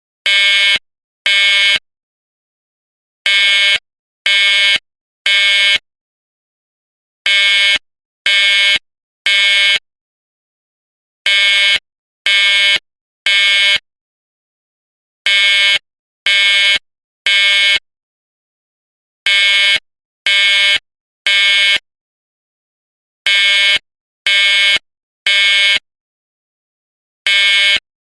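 Edwards 792-7A-006 Pre-Integrity fire alarm horn strobe sounding the Code-3 temporal pattern: three loud horn blasts about a second apart, then a pause, repeating about every four seconds. This is the standard fire evacuation signal.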